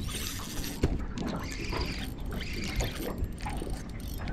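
Spinning fishing reel being wound in, its gears whirring and clicking, while a hooked fish is fought on the line.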